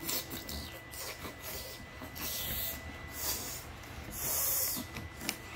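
Mouth-made slurping and sucking sounds: a string of short hissy slurps, with a longer, louder one about four seconds in.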